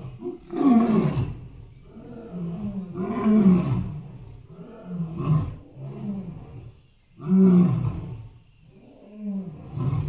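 Elephant roaring in a series of about five short calls, roughly two seconds apart, each rising and falling in pitch.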